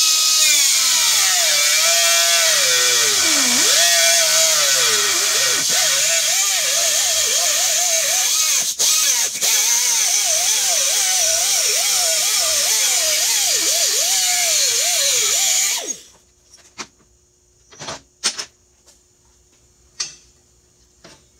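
Angle grinder with a thin cut-off wheel cutting through a small piece of steel held in a bench vise; the grinder's whine sags and wavers under load as the wheel bites. It stops about three-quarters of the way through, followed by a few short knocks of steel pieces being handled on a steel table.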